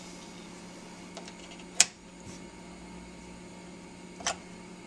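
A steady low hum with two sharp clicks, the first and louder one about two seconds in, the second near the end.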